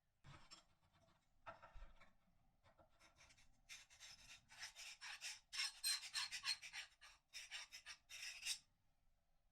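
Repeated rasping strokes of a hand tool worked back and forth over a workpiece, sparse at first, then quicker and stronger at about three strokes a second before stopping near the end.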